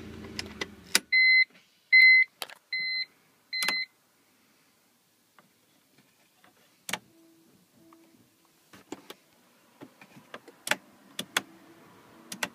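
A steady hum cuts off about a second in, followed by four short, high electronic beeps about a second apart. After that come scattered sharp clicks and a few faint short tones.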